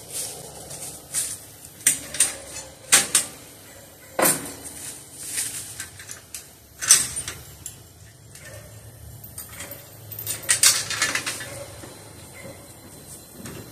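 Irregular metal clanks and rattles of a utility trailer's tongue and coupler being hooked onto a homemade receiver hitch, with a rattly cluster of clanks about ten seconds in.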